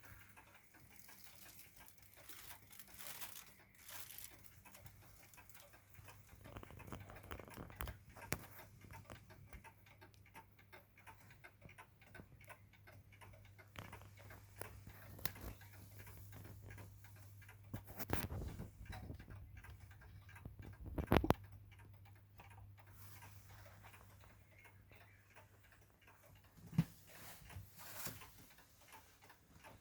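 Junghans round wall clock's mechanical movement ticking steadily, running again after servicing. A few louder knocks come through, the loudest about two-thirds of the way in.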